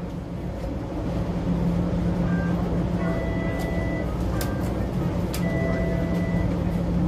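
Inside a TTC Bombardier streetcar: a steady low hum and rumble, with two long electronic beeps about a second each, a few seconds apart, and a couple of short higher beeps.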